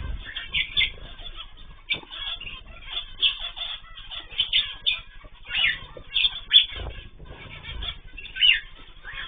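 A mixed aviary of cage birds (cockatiels, zebra finches and canaries) keeps up short, sharp, overlapping chirps and calls. A few low thumps, which may be wing flaps, come about seven and eight seconds in.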